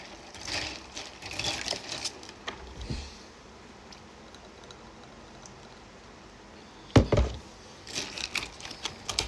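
Drink containers being handled while a drink is mixed: rustling and clinks at first, then a single sharp knock about seven seconds in, as of a can or bottle set down on a table, followed by a few light taps.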